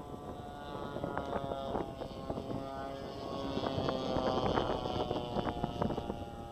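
Two-cylinder petrol engine of a radio-controlled P-51 Mustang scale model running steadily in flight, getting louder about four seconds in as the plane passes closer. Wind knocks on the microphone come through over it.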